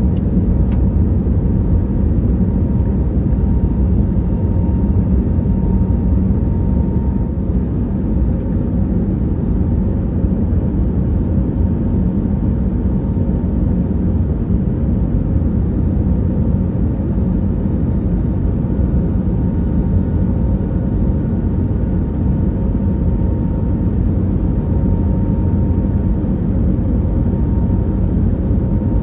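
Steady cabin noise of an Airbus A321neo in its climb after takeoff: a deep, even rumble of airflow and the Pratt & Whitney PW1100G geared turbofan engines, with a faint steady hum above it.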